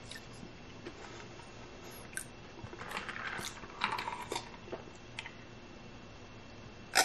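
Close-miked sipping and swallowing from a glass of drink, with soft wet mouth clicks and gulps clustered in the middle and one sharp click near the end.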